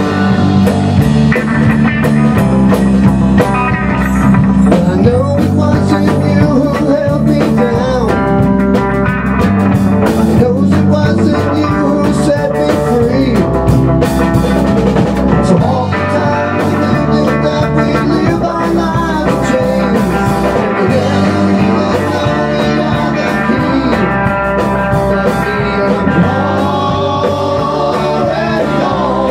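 Rock band playing live: distorted electric guitar, electric bass and a drum kit with a steady beat, with men's voices singing over it during the later part.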